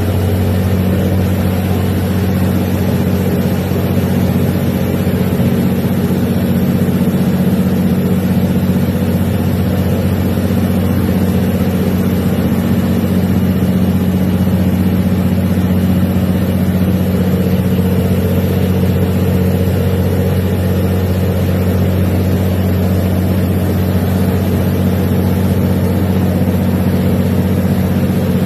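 Scania 600 hp electronic diesel engine of a river passenger boat running steadily at cruising power, a constant low drone, with water rushing and churning along the hull.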